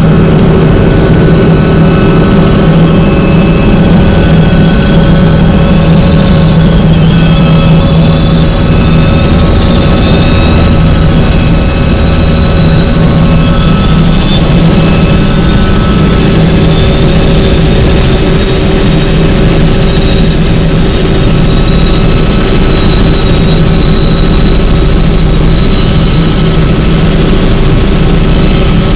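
Helicopter in flight: steady, loud turbine engine and rotor noise, with a deep hum and a high turbine whine that wavers and rises slightly partway through.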